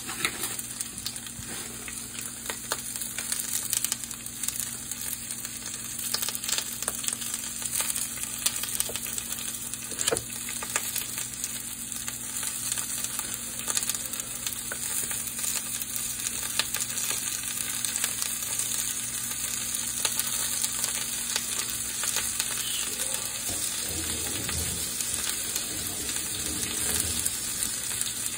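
Stir-fry of bean sprouts, cabbage, carrot and minced pork sizzling in a frying pan, a steady hiss with frequent small crackles.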